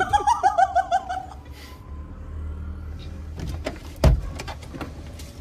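A woman's high-pitched laughter in rapid bursts for about a second, stifled behind her hand with water held in her mouth. About four seconds in, a few clicks and a heavy thump as the car's passenger door is opened.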